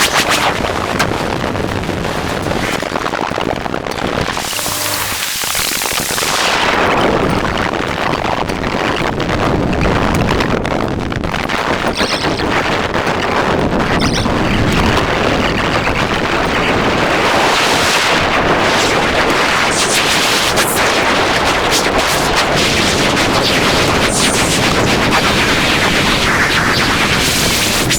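Harsh noise music: a loud, dense wall of distorted static full of crackling, stuttering bursts, with swells of hiss sweeping through a few times.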